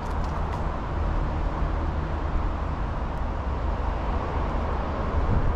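Steady low rumble of road traffic, swelling slightly near the end as a vehicle comes closer.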